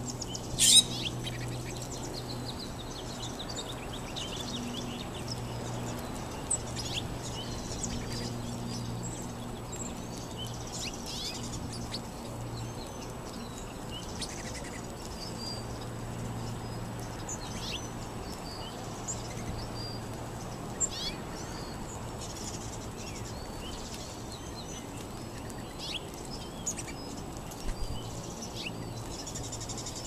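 A ground-feeding flock of sparrows chirping, with many short, scattered call notes and one louder call about a second in. A low steady hum runs underneath and drops away about two-thirds of the way through.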